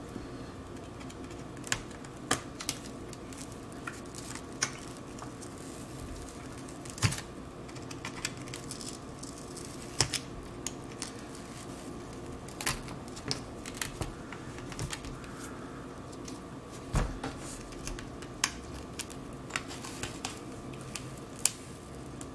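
Irregular small clicks and ticks of a pry tool and plastic opening picks working around the edge of a cracked iPad 6 digitizer glass, separating it from the frame, over a faint steady hum.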